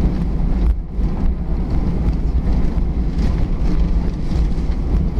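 Steady low rumble of cabin noise inside an Airbus A320 rolling on the ground after landing: engine and wheel noise heard through the fuselage. The level dips briefly just under a second in.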